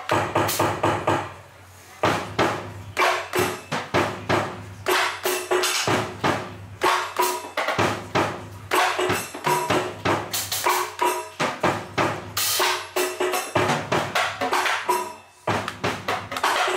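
Live jazz and electronic music: a busy drum and percussion beat under sustained keyboard notes. The beat drops out briefly about a second in, then comes back in.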